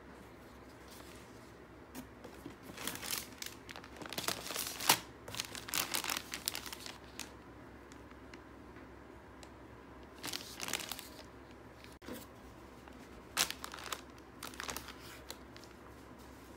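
Plastic packaging and paper crinkling and rustling in irregular bursts as a parcel is unpacked by hand, with the sharpest crackle about five seconds in.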